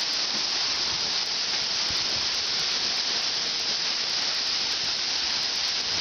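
Waterfall: the steady rushing hiss of falling water.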